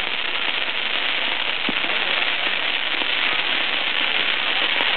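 Fireworks on a fire dragon spraying sparks: a dense, steady crackling hiss.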